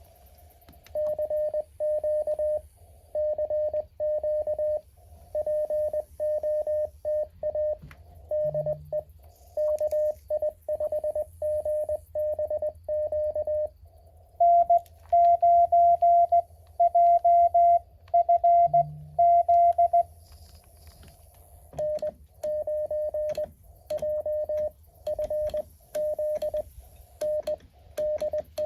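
Morse code (CW) tones from a Mountain Topper MTR-4B QRP transceiver, a single pitch keyed on and off in dots and dashes. About halfway through, a louder, slightly higher-pitched CW signal is keyed for about six seconds, then the lower tone resumes.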